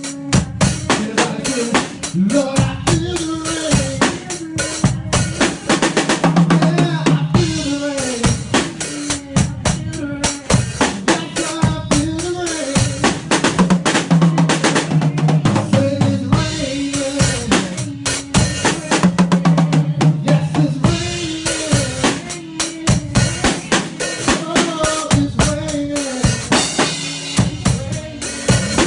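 Drum kit played live in a praise band: kick, snare and cymbals in a busy steady groove, under held notes from other instruments.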